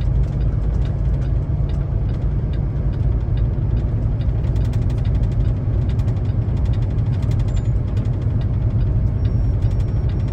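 Semi truck's diesel engine running steadily and low in fourth gear while the truck eases down the grade, with a fast run of faint ticks through the middle. A Wi-Fi hotspot gives short high beeps near the end.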